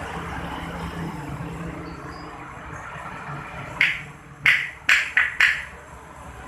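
Steady running noise from a car engine bay, with five sharp knocks close together in the second half, about four and a half seconds in.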